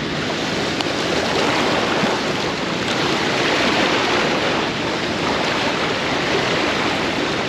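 Floodwater churning through the outflow of a dam spillway: a steady, dense rush of turbulent whitewater.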